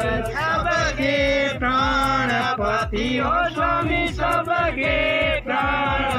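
Hindu devotional chanting: a voice sings a mantra-like hymn in a held, melodic line, with a steady low hum beneath.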